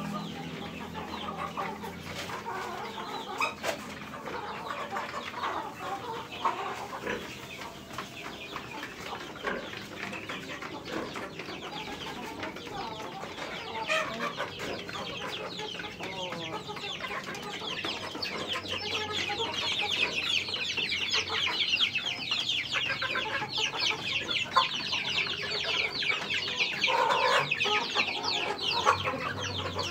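Chickens clucking in their pens. About two-thirds of the way through, a dense chorus of high, rapid chirping builds up and grows louder.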